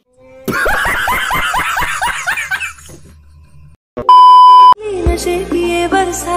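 A burst of laughter, a rapid run of 'ha' syllables lasting about two seconds, used as a sound effect. About four seconds in comes a steady high beep of about half a second, the 1 kHz colour-bars test tone, which is the loudest sound. Music with a sung melody follows it.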